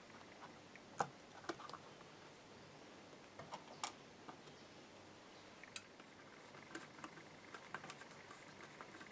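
Faint, scattered clicks and taps of small hardware and hand tools being handled while a Fender Stratocaster is taken apart, with sharper clicks about one second in and about four seconds in.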